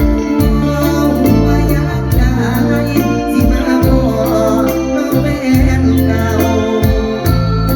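Loud live mor lam sing band music: a heavy bass line and a steady drum beat under sustained keyboard tones, with a wavering melody line in the middle.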